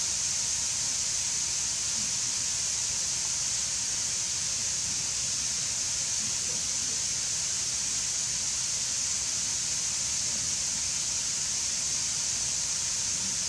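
High-pressure misting nozzles spraying fog: a steady, high-pitched hiss.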